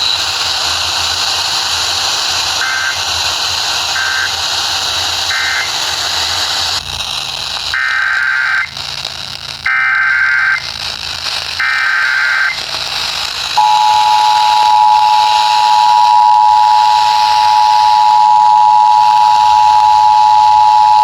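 Emergency Alert System transmission received over a weather radio, with steady static hiss. Three short beeps are followed by three one-second SAME header data bursts with short gaps between them. About 13 seconds in, the two-tone attention signal starts and holds steady: the sign that a warning message follows.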